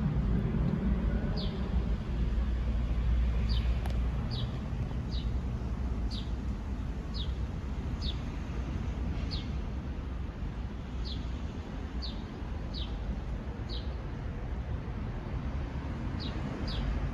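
Low rumble of a jet airliner passing overhead, easing off through the middle and swelling a little again near the end. Over it a small bird calls repeatedly, short high falling chirps about once a second.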